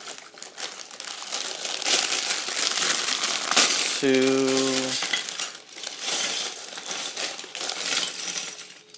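Plastic bags of Lego pieces being handled: crinkling plastic with many small pieces rattling and clinking inside.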